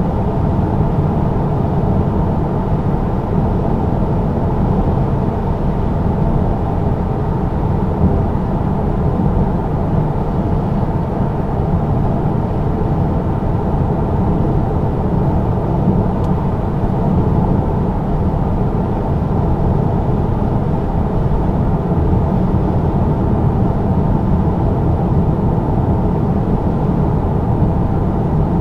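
Steady in-cabin drone of a BMW F30 330d cruising at an even speed: road and tyre noise mixed with the hum of its straight-six diesel engine, with no gear changes or revving.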